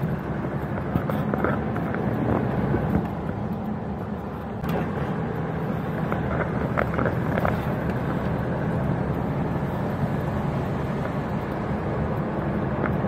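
Car engine running steadily under road and tyre noise, heard from inside the cabin.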